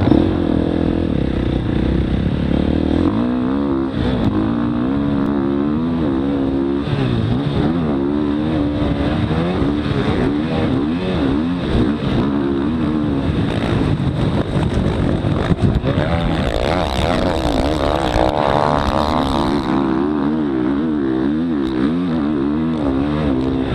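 Motocross dirt bike's engine, heard from the rider's helmet, revving up and down continually through corners and straights, with its highest, hardest pull about two-thirds of the way in.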